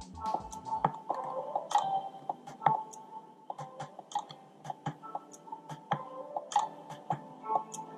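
Music playing from the OneAudio A7 headphones' earcup, thin and without its deep bass, crossed by a run of sharp clicks as the volume button on the earcup is short-pressed.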